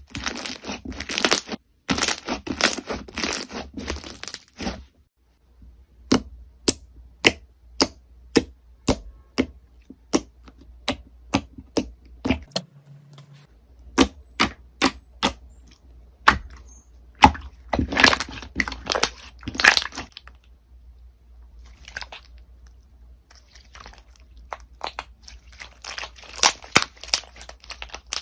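Crunchy slime being handled, crackling and popping: a dense patch of crackling at first, then a run of sharp single pops about two or three a second, and another burst of crackling past the middle.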